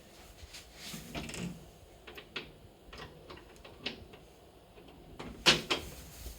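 Household banging: scattered knocks and clatter, with two sharp bangs close together about five and a half seconds in, like a door or cupboard being shut.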